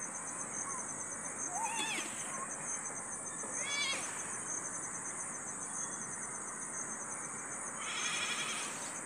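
Crickets chirping steadily in a rapid, even pulse, with a few short wavering animal calls over them, the longest lasting about a second near the end.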